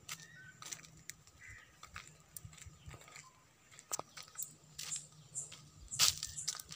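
Footsteps crunching on a dirt path strewn with dry leaves: an irregular run of short steps and crackles, loudest about six seconds in.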